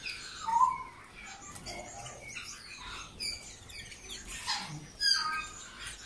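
Many caged canaries chirping and calling over one another, in short overlapping notes and glides. One call stands out about half a second in, and a burst of quick trilled notes comes about five seconds in.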